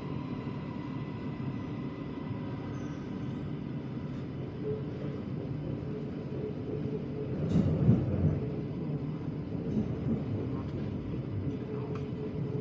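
Cabin running noise of an MRT Blue Line metro train pulling out of an elevated station onto the viaduct: a steady rumble with a faint steady hum, swelling louder with a sharp knock about eight seconds in.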